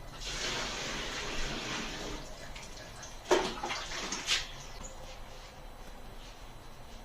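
Water running and splashing, loudest in the first two seconds and then fading, followed by two sharp knocks about a second apart.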